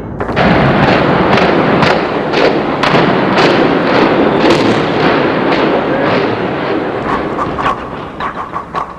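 A rapid, irregular series of sharp bangs and cracks over a continuous noisy rush, thinning out and getting quieter near the end.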